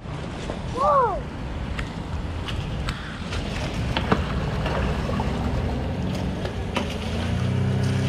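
Wind and lapping water with light splashing as fish break the surface below the pier, a short high call that rises and falls about a second in, and scattered sharp ticks. A motorboat engine comes up near the end.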